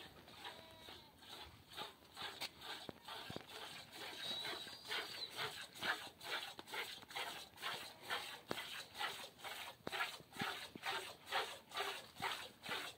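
Cow being milked by hand: milk squirting into a plastic container in a steady rhythm of about two squirts a second.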